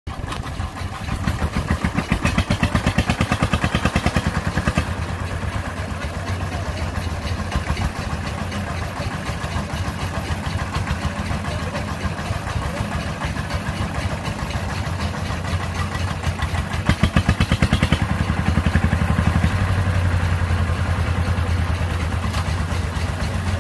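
Single-cylinder diesel engine of a công nông farm truck running with a rapid, even chugging beat. It grows louder for a couple of seconds near the start and again about two-thirds of the way through.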